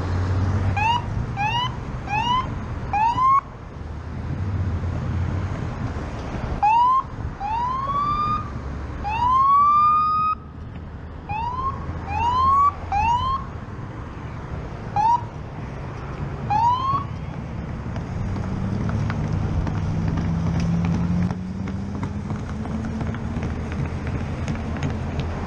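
Police siren giving a series of short rising whoops in bursts, some quick and close together and one longer, over steady wind and road rumble from a moving motorcycle.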